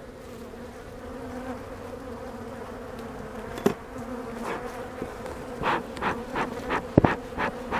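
Honey bees from an opened hive buzzing in a steady, close hum. About halfway through, a couple of sharp knocks and a run of short rustling or scraping strokes join in.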